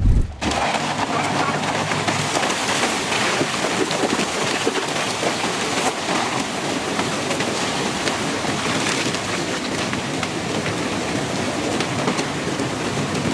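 Heavy rain in a storm: a steady, dense hiss of downpour and wind that starts abruptly.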